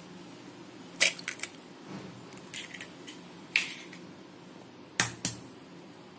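Raw eggs tapped against the rim of a stainless-steel mixer-grinder jar and cracked open: a quick cluster of sharp taps about a second in, single taps a little later, and two more near the end.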